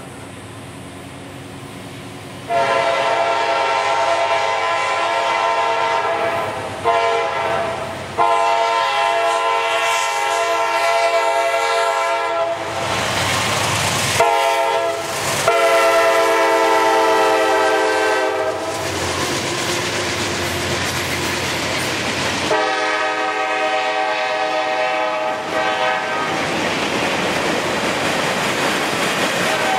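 Air horn of a CSX GE CW40-8 diesel locomotive sounding a series of long blasts, starting about two and a half seconds in and ending a few seconds before the end. Between the blasts and after them, the passing locomotives rumble and the freight cars clatter over the rail joints.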